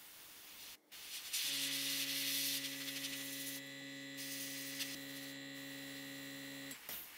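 Small airbrush compressor motor humming steadily from about a second and a half in until it cuts off near the end. The hiss of the airbrush spraying paint is loudest at first.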